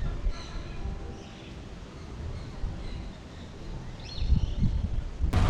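Birds chirping in short calls, over a low uneven rumble.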